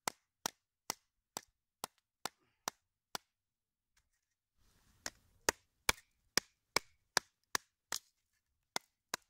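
Wooden baton striking the spine of a Fällkniven F1 survival knife driven into a log, splitting it: a run of sharp wooden knocks, two to three a second. They break off for about a second and a half midway, then resume louder.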